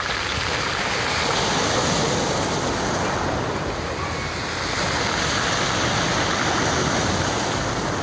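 Black Sea surf breaking and washing up onto a pebble beach: a steady rush of water that swells twice as waves come in.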